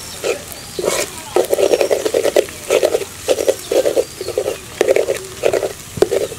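Flat metal spatula scraping and stirring scrambled egg around a hot metal pan in quick repeated strokes, about two a second, over a light sizzle of frying.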